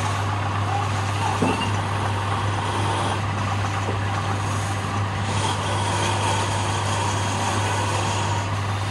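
Wood lathe running with a steady motor hum while a spinning wooden spindle is sanded by hand, abrasive hissing against the turning wood.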